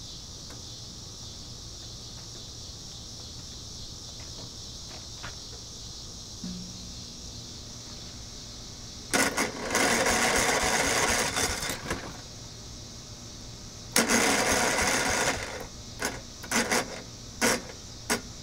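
Push lawn mower's small engine, unused for about five years, being pull-started: twice it fires and runs roughly for a few seconds before dying, then several short tugs of the recoil starter cord near the end.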